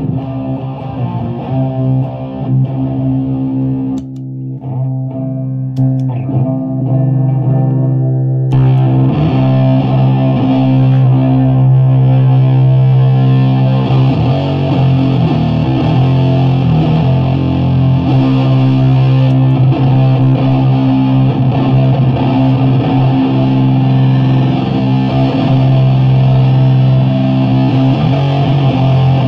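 Electric guitar played through fuzz pedals into a 50-watt Bridge City Sound Morrison amp head and a 6x12 cabinet with Celestion V70 Gold speakers: heavy, sustained fuzz-distorted low notes and chords. About four seconds in the sound thins out. At about eight and a half seconds a fuller, louder fuzz comes in and holds.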